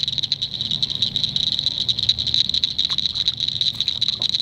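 Night chorus of frogs and insects: a steady, high-pitched, rapidly pulsing trill with a faint low hum beneath it.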